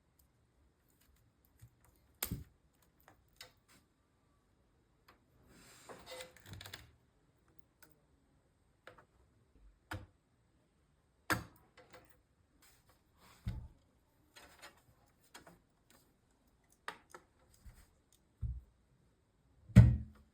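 Computer parts being handled and fitted by hand: scattered light clicks and taps, a brief scraping rustle about six seconds in, and a heavier knock near the end.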